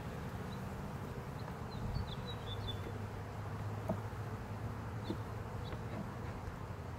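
A colony of honeybees buzzing around an open hive: a steady low drone of many bees.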